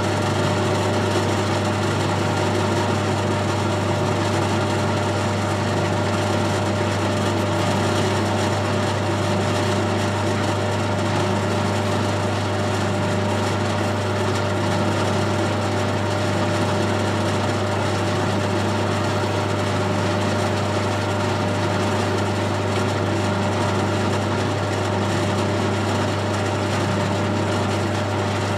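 Colchester Student lathe running steadily under power with a constant hum, during a screw-cutting pass on an internal ACME thread.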